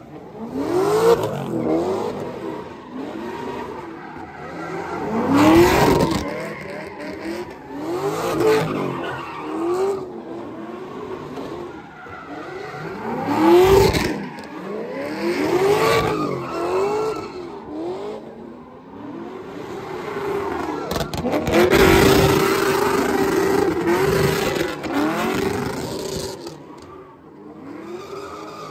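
Pontiac G8's engine revving up and down again and again while its tires squeal and skid through donuts. In the second half the revs are held steady for a few seconds.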